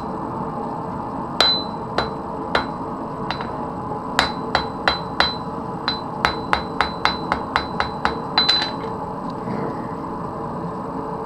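Blacksmith's hammer striking metal stock on an anvil, about twenty ringing blows. A few slow, spaced strikes come first, then a quick run of about three a second that stops shortly before the end. A steady hum of forge noise runs underneath.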